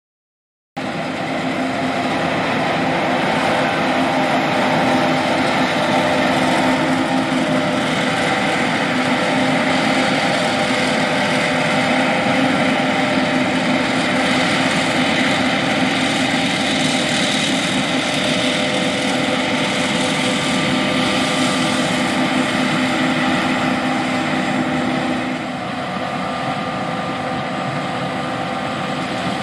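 John Deere S780 combine harvester running while harvesting soybeans: a steady drone from the engine and harvesting machinery, with several steady whining tones. It starts just under a second in and drops a little in level about 25 seconds in.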